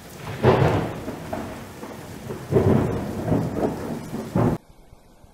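Intro sound effect of two rumbles like thunder, the second about two seconds after the first, cutting off abruptly near the end.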